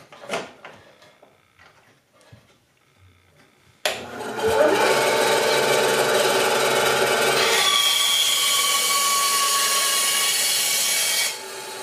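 A few knocks of a wooden strip being set on the cast table, then a Delta 9-inch benchtop bandsaw switched on about four seconds in, its motor spinning up with a short rising whine and running steadily. About halfway through, the blade cuts through the strip of oak flooring. Near the end the sound drops as the cut finishes and the saw runs on.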